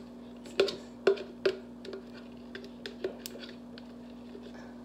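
Metal spoon clicking and scraping against a plastic Miracle Whip jar while spoonfuls of dressing are scooped out over the bowl: a run of sharp clicks, loudest in the first second and a half, then lighter ticks. A steady low hum runs underneath.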